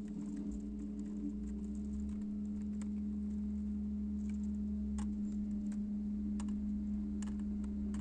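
Leaf-collection machinery: an engine running at a steady speed with a steady hum and low rumble, and scattered sharp clicks and knocks, most of them in the second half.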